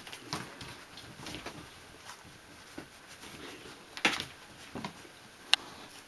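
Thirteen-day-old Newfoundland puppies shuffling on fleece bedding: scattered soft rustles and small clicks, with a louder scuffle about four seconds in and a sharp click about a second after it.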